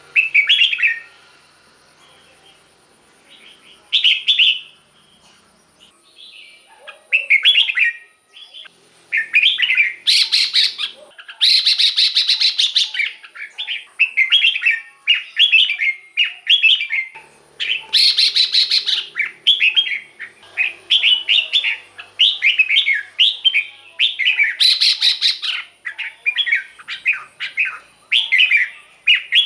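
Red-whiskered bulbul singing short, bright chirping phrases over and over. The phrases come a few seconds apart at first, then run almost without a break from about a third of the way in.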